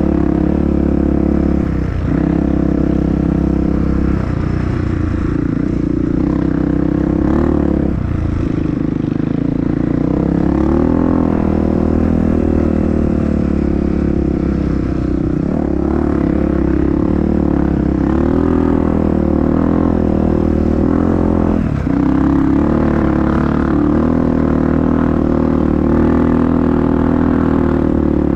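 Honda CRF dirt bike engine running under changing throttle on a trail ride, its pitch rising and falling, with several brief dips where the throttle is rolled off or a gear is changed.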